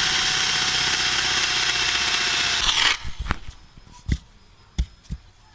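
Cordless drill running with a spade bit boring into an oak log, then stopping about three seconds in, followed by a few sharp knocks. The bit is mostly polishing the hard oak rather than cutting into it.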